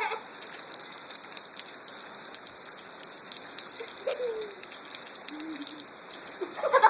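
Steady rain falling, a fine even hiss of drops, with two short faint calls about four and five seconds in.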